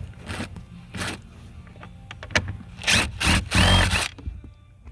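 A cordless power tool spinning out the accelerator pedal assembly's single 10mm mounting bolt, running in several short bursts, the longest and loudest about three seconds in.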